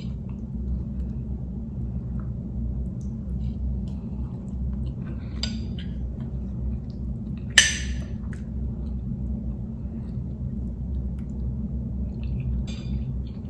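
Metal fork clinking and scraping on a ceramic plate in a few small taps, with one sharper clink about seven and a half seconds in, over a steady low hum.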